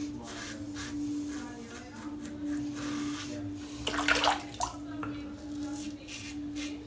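Tap water running briefly about four seconds in, with short scraping strokes of a safety razor around it.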